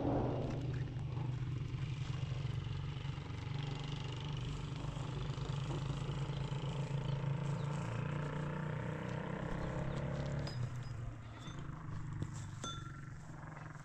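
A vehicle engine running steadily, dropping a little in level about ten and a half seconds in.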